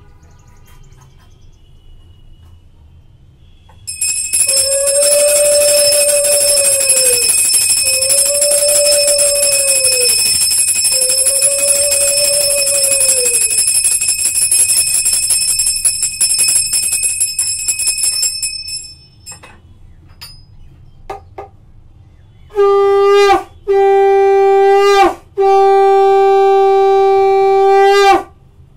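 A brass puja hand bell rung without pause for about fourteen seconds, ringing with steady high tones, while three long tones rise and fall underneath. Then a conch shell (shankha) is blown three times, each blast a steady tone that sags in pitch as it ends, the last one longest.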